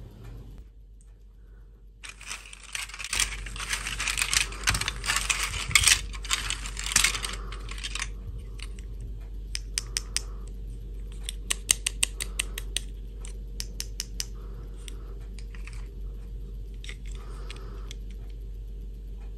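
Small plastic dolls and their moulded plastic clip-on dresses being handled. For the first several seconds there is a dense clatter and rustle of the pieces being sorted; then come scattered light clicks and taps as a dress is fitted onto a doll.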